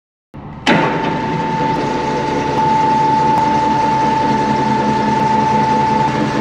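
Two-post car lift's electric motor switching on under a second in with a clunk, then running steadily with a constant whine as it raises the car.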